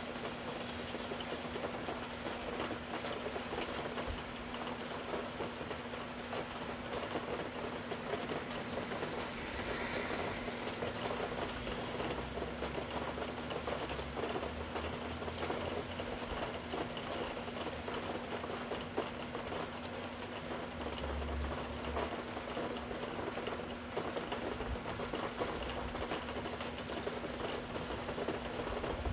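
Steady rain falling and pattering, with a faint steady hum underneath.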